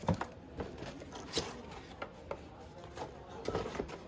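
Hands handling a laptop and its packaging: irregular light knocks, taps and rubbing, a dozen or so short clicks spread unevenly.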